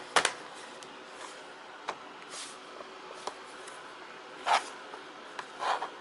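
Plastic bottom access cover of an Asus K50IJ laptop being fitted and pressed into place by hand: scattered light clicks and knocks, the loudest about four and a half seconds in.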